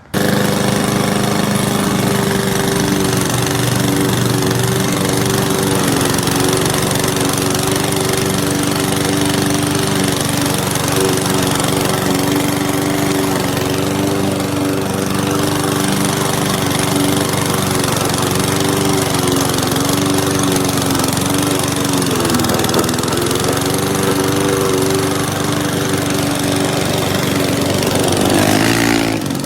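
PowerSmart 21-inch walk-behind gas lawn mower's 144cc single-cylinder OHV engine running steadily at cutting speed while mowing grass. Its pitch dips briefly about two-thirds of the way through, then recovers.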